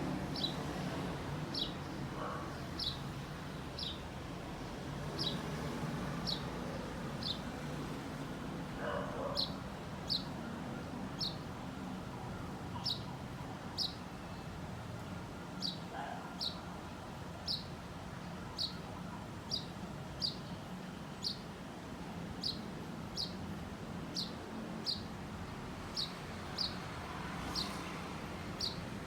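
A bird chirping again and again: short, high chirps, often two close together, repeated about once or twice a second, over a low steady background rumble.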